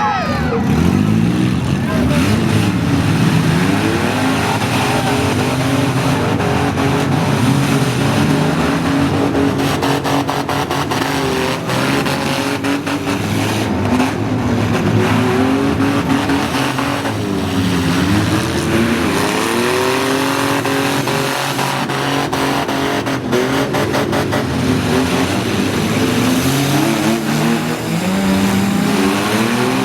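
Several engines revving up and down at once as minivans, SUVs and small trucks drive in a demolition derby, with repeated sharp bangs of the vehicles colliding.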